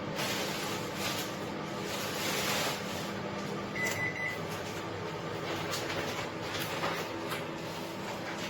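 Candy Smart CMG2071DS microwave oven running with a steady low hum, with scattered rustling and knocking sounds and one short high beep about four seconds in.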